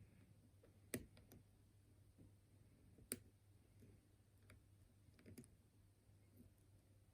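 Faint, scattered small metallic clicks of a lock pick and tension wrench working the pins of a Lockwood oval pin-tumbler cylinder, with two sharper clicks about one and three seconds in.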